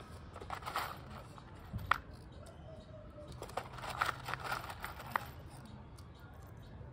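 Hands handling parts and materials: scattered light clicks and taps with brief rustling, a sharper click about two seconds in, and a busier cluster of clicks and rustles a little past halfway.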